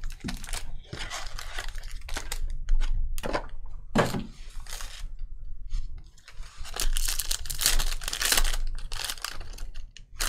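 Shiny plastic trading-card pack wrappers crinkling as the packs are handled, and a pack being torn open, with a dense burst of tearing and crinkling about seven to eight seconds in. A thump about four seconds in.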